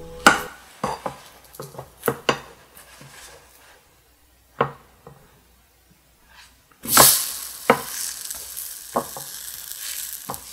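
A spatula scraping and knocking against a nonstick frying pan as it is worked under a blueberry pancake. About seven seconds in the pancake is flipped and the raw batter side hits the hot pan with a sudden burst of sizzling that carries on steadily, with a few more spatula knocks.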